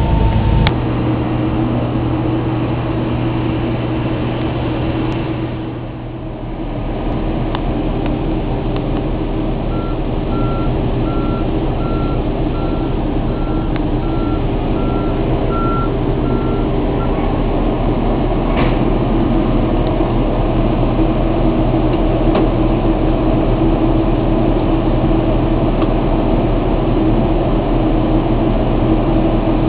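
Airport ground-service vehicle's reversing alarm beeping about once a second for some seven seconds, over a steady engine drone.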